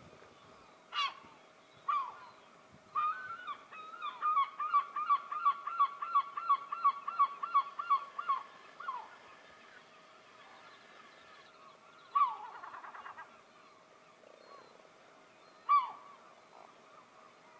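A large bird calling loudly in a series: a few single calls, then a fast run of about twenty calls at roughly four a second, then two more single calls with long gaps between them.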